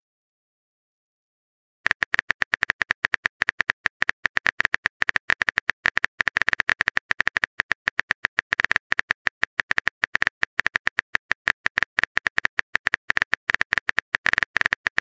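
Rapid keyboard-typing clicks, a texting app's typing sound effect, several clicks a second, starting about two seconds in after a short silence.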